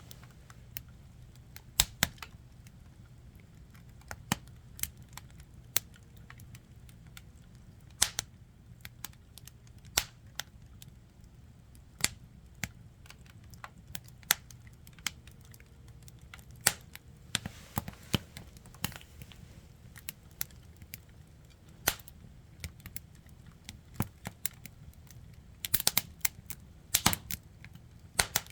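Burning firewood crackling, with sharp, irregular pops scattered every second or two and a quick flurry of pops near the end.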